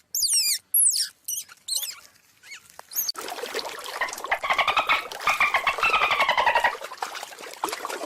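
Animal calls: a few quick, high-pitched squeaks that sweep down in pitch, then a longer, rapid pulsing call that slowly falls in pitch and stops near the end.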